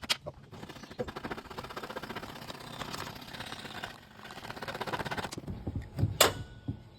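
Coping saw cutting through crown molding, sawing steadily on a back-cut cope, then stopping about five seconds in. A sharp knock follows about a second later.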